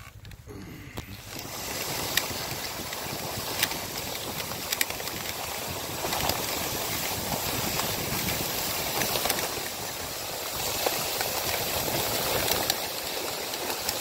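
Wooden dogsled's runners sliding over snow behind a husky team, a steady rushing hiss that builds about a second in, with a few sharp clicks.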